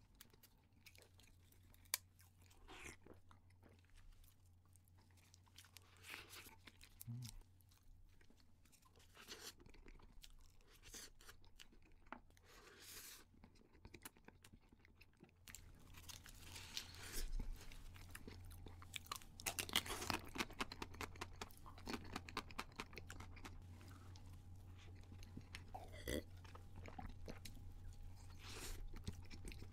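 Close-up mouth sounds of a person chewing and biting into a soft chocolate muffin: many small wet clicks and crackles, busier and louder past the middle, over a steady low hum.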